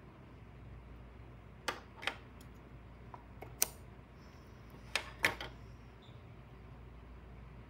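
Steel scissors handled on a wooden desk, snipping yarn and being picked up and set down: a few sharp clicks, a pair about a second and a half in, one in the middle, and another pair about five seconds in, over a low room hum.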